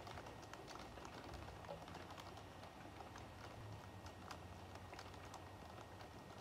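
Rain falling: a faint, steady hiss with many irregular light ticks of drops striking.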